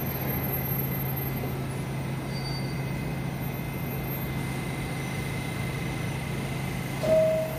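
Steady low rumble and hum of an elevated subway station, with a brief loud tone about seven seconds in.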